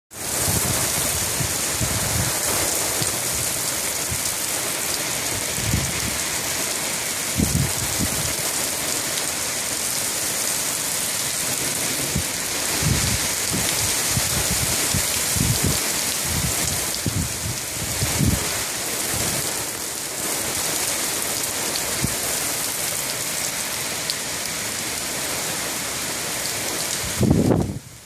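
Heavy rain pouring down steadily in a downpour, with gusts of wind rumbling low every few seconds, the strongest near the end.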